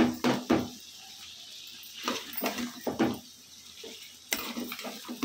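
Metal spoon scraping and knocking against a metal pot while stirring chicken pieces, in bursts near the start and again around two to three seconds in.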